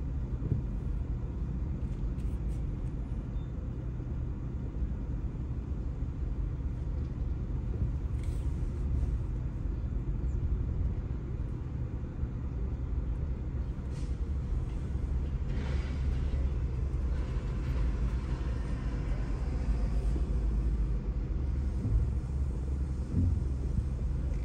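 Steady low rumble of a car's engine and tyres, heard from inside the cabin as the car moves slowly.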